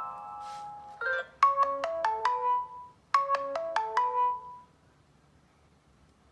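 Samsung Galaxy S5 stock ringtone: a short bright melody of about six quick, ringing notes, played twice, then stopping. In the first second the previous ringtone fades out.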